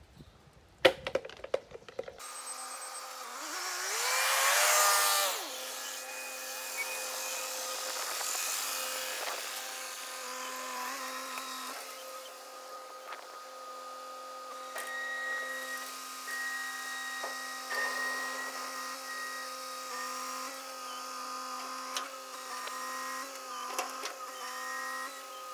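A brief clatter at the start, then a roll-off truck's hydraulic hoist whining steadily as it tilts and slides a steel roll-off dumpster off its frame. The pitch rises with a louder sweep about four seconds in and steps up and down after that, with a few sharp knocks of the container near the end.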